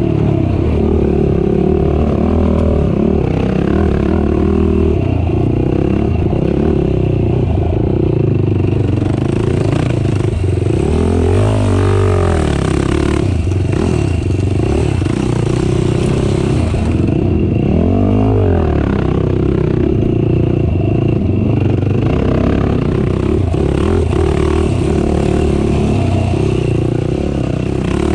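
Race ATV engine running hard, its pitch rising and falling with the throttle, with two sharp dips and climbs near the middle and about two thirds in, over a steady noise of clatter.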